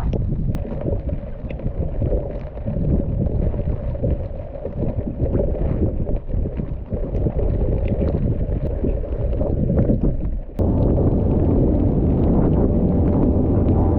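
Wind buffeting the microphone as a gusty low rumble. It breaks off sharply about ten and a half seconds in and comes back steadier and a little louder.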